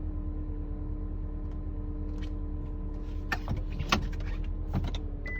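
Nissan Serena C26 engine idling with a steady whine over the engine hum, the early sign of a failing alternator, which the dealer traced the noise to. A few sharp clicks sound between about three and five seconds in, the loudest near four seconds, and a short high beep starts right at the end.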